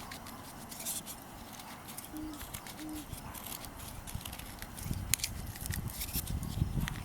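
Scattered light clicks and ticks with rustling, as of small objects being handled close to the microphone, growing into a louder low rumble of handling noise over the last two seconds.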